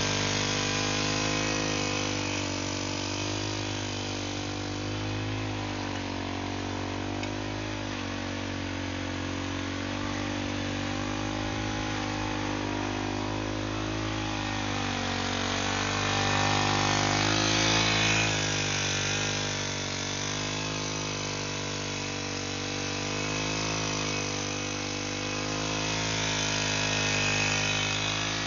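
Small engine of a backpack brush cutter running steadily, its pitch wavering up and down, louder for a couple of seconds about two-thirds through. Its shaft drives a mixing wheel that churns dry cement mixed with small stones on the ground.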